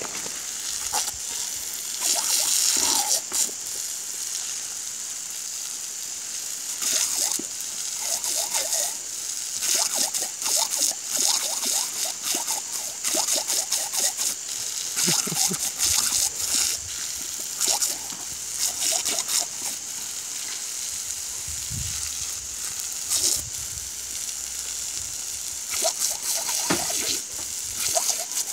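Jet of water from a garden hose hissing and splattering as a German shepherd bites and laps at the stream, with repeated louder splashes every second or so.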